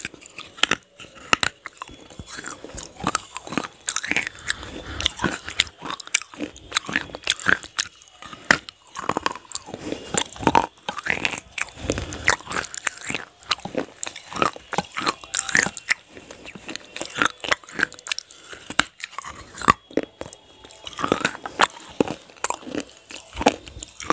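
Close-miked biting and chewing of brittle pieces of roasted clay pot coated in cream: dense, irregular crunches.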